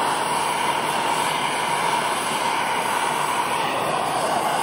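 Blowtorch flame burning with a steady hiss, preheating a joint before silver soldering.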